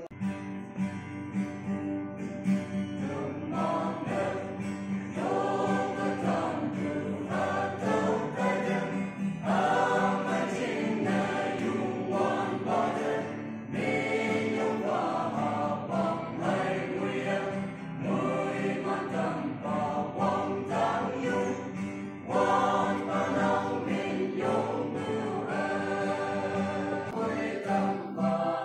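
Small mixed choir of men and women singing a gospel hymn together, phrase after phrase, in a large hall with a little reverberation.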